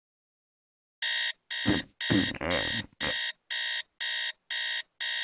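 Digital alarm clock beeping in a steady electronic pattern, about two beeps a second, starting about a second in after silence.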